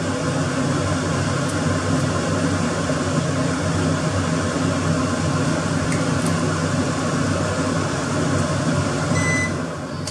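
Steady whir of a kitchen fan running. About nine seconds in there is a short electronic beep, and the whir then dies down.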